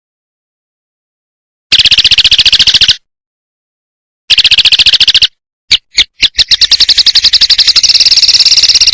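Kecial kombok (cucak kombok) song: fast chattering trills of about a dozen high notes a second. After a second and a half of dead silence come a short run, a second run, two single notes and then a long trill from about six seconds in.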